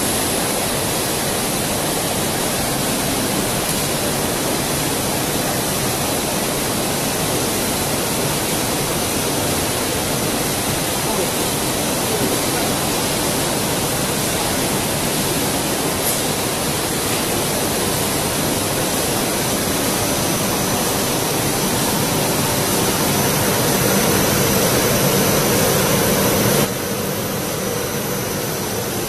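QS-DH65 double-head blown film extrusion machine running: a steady, dense rushing noise of its blowers and motors with a faint high whine over it. Near the end the noise drops a step quieter.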